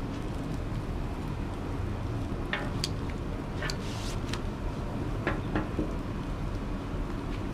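Food sizzling on a griddle over a steady low rumble, with a handful of sharp clicks of metal utensils in the middle.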